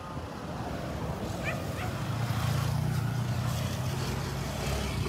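A motor vehicle engine running close by, a steady low hum that builds over the first two seconds and then holds. Two short high squeaks sound about a second and a half in.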